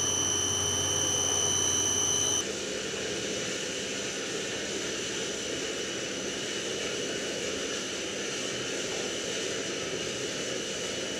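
A steady machine-like whir with a high whine, which changes abruptly about two and a half seconds in to a duller steady noise.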